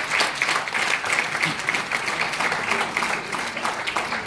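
Audience applauding, a dense steady patter of many hands clapping, with a few voices faintly in the mix.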